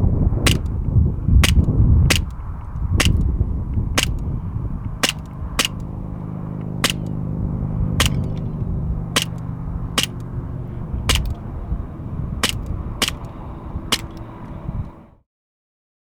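Airsoft gun fired shot after shot, about fifteen sharp cracks at an uneven pace of roughly one a second, over a low rumble. The sound cuts off abruptly near the end.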